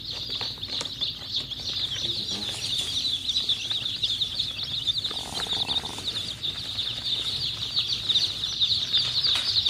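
A flock of young Pancamurti kampung chicks (native Indonesian village chickens) peeping: a dense, continuous chorus of short, high-pitched peeps.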